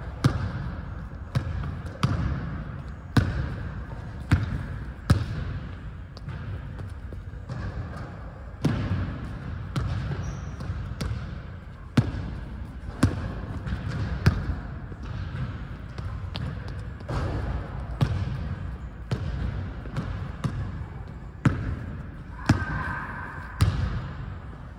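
A basketball bouncing on a hardwood gym floor: sharp, irregular thuds about once a second as it is dribbled.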